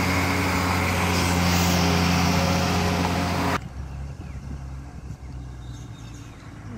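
Tata 3118C truck's diesel engine running steadily and loudly, with a hiss over it. About three and a half seconds in it cuts off abruptly, leaving a much quieter low rumble.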